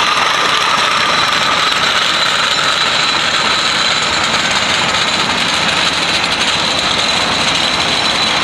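Engine of a Ford Super Duty dually pickup running steadily as the truck creeps forward with a loaded trailer behind it, with a steady high whine over the engine noise.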